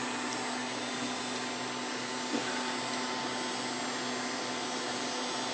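MakerGear M2 3D printer running steadily, homing its axes at the start of a print: an even fan-like whir with a faint constant hum.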